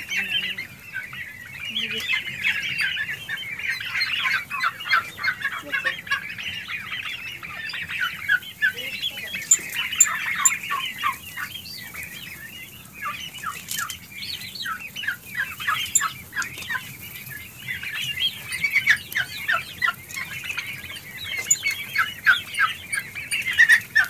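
A flock of three-month-old turkey poults calling: many short, high-pitched peeps and chirps overlapping without a break.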